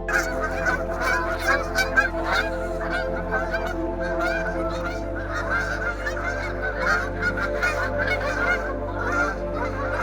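A flock of geese honking continuously, many calls overlapping, over soft ambient music.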